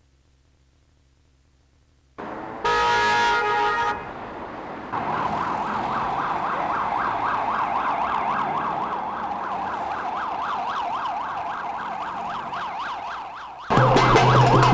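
City street traffic noise starting about two seconds in, with a brief blast of a car horn, then an emergency vehicle siren warbling rapidly and steadily. Near the end, loud drums come in.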